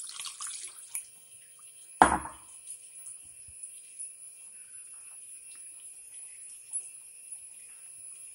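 Water poured from a bowl into rice flour in a steel bowl, splashing for about the first second. About two seconds in comes a single loud knock, then faint squishing as the wet flour is mixed by hand.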